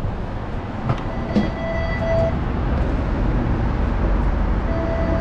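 Streetcar running on its rails with a steady low rumble, two short clanks about a second in, and two brief steady tones, one just after the clanks and one near the end.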